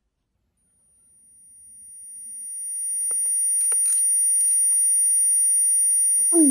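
Steady, high-pitched electronic tone, an alarm-like beep, fading in about a second in and then holding, with a few soft clicks near the middle.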